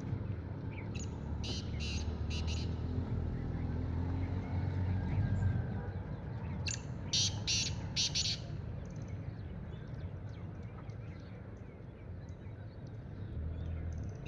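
Black francolin calling: two phrases of four or five harsh, grating notes in quick succession, the second phrase about seven seconds in and louder. A steady low rumble runs underneath.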